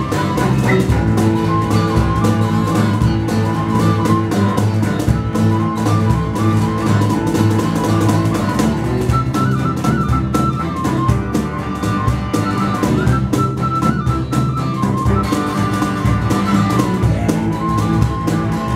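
Live acoustic band playing a bulgar, a klezmer-style dance tune: a small flute carries a stepping melody over strummed acoustic guitar, double bass and a steady cajón beat with cymbal.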